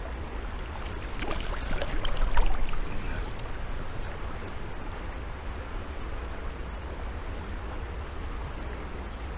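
Steady rush of flowing river water, with splashes from a hooked brown trout thrashing at the surface near the landing net, loudest about two seconds in.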